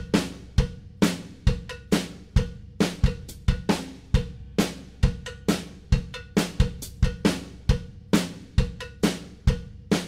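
Background music in a drum-only stretch: a steady kick, snare and hi-hat beat at about two beats a second.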